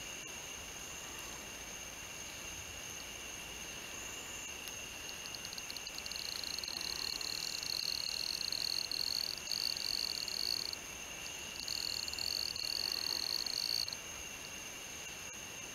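A high-pitched insect trill starts about five seconds in as a run of quick pulses, then runs continuously, breaks off briefly near eleven seconds, and stops about fourteen seconds in. Under it, a steady thin chorus of night insects goes on throughout.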